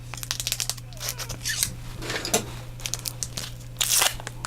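A trading card pack's foil wrapper being opened by hand: a quick run of crinkling and tearing, loudest just before the end.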